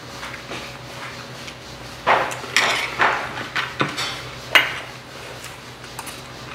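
Metal spoons and chopsticks clinking and scraping against stone soup pots and stainless-steel rice bowls. After about two seconds of little sound comes a run of sharp clinks lasting a few seconds, a couple of them ringing briefly.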